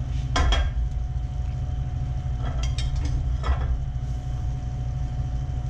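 A metal ladle dipping hot stock from a saucepan and pouring it into a pot of risotto, making a few brief clinks and splashes: one near the start and a cluster about three seconds in. A steady low kitchen hum runs underneath.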